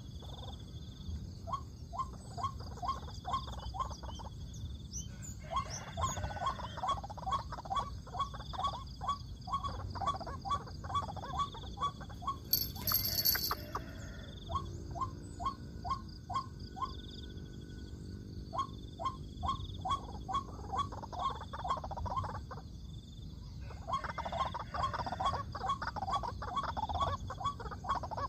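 White-breasted waterhen calls: a steady series of short, repeated croaking notes, about two to three a second, growing denser and harsher in two stretches. A brief loud, harsh burst about thirteen seconds in stands out above them.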